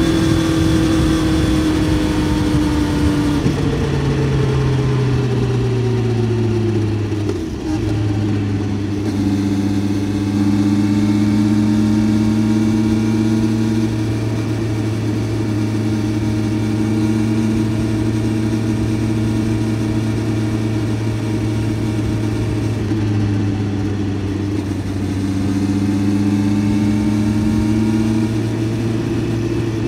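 Honda CBR650F's inline-four engine under way. The note falls over the first several seconds with a brief dip about eight seconds in, then holds nearly steady at a constant road speed, easing off briefly near the end.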